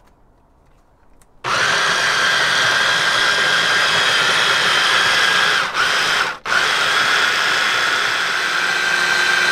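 Cuisinart Smart Stick hand-blender motor driving its mini food-processor attachment, pureeing roasted red peppers in liquid: a steady high motor whine. It starts about a second and a half in, cuts out for a moment about six seconds in, then runs on.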